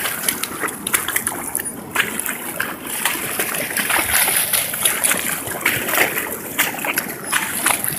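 Muddy floodwater rushing and splashing in a fast, full channel: a steady rush of water with constant small splashes.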